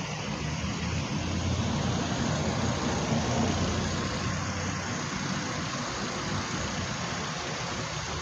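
Pressure washer running: a steady, unbroken drone over a constant hiss of water.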